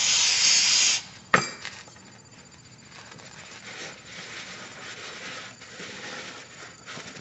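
Aerosol brake cleaner hissing as it is sprayed onto a rag, cutting off about a second in, followed by a single sharp knock. Then a rag rubs faintly as it wipes out the rear differential's pinion seal bore.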